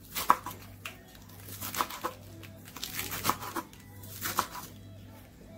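Chef's knife chopping lettuce on a bamboo cutting board: irregular crunching cuts and knocks of the blade on the wood, stopping about a second before the end.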